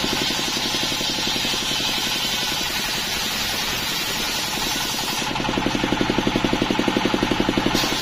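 Stationary diesel engine running with a fast, even beat, driving a large circular saw blade through a split coconut-palm trunk, with a steady hiss of the cut over it. A little after halfway the engine beat grows louder for a couple of seconds.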